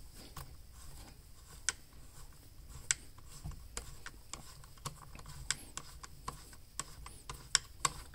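Scattered light clicks and ticks, irregular and a dozen or so in all, from a small Torx screwdriver working a screw out of a chainsaw's plastic top cover.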